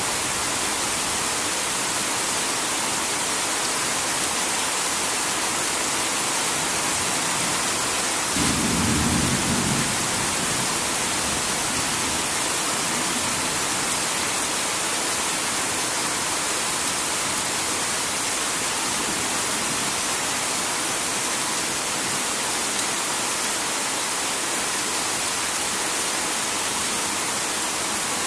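Heavy rain falling steadily, with a short low rumble of thunder about eight seconds in.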